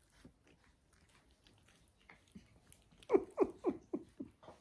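Soft licking and nibbling as a dog grooms a cat, then about three seconds in a woman laughs: five short falling 'ha's, about four a second.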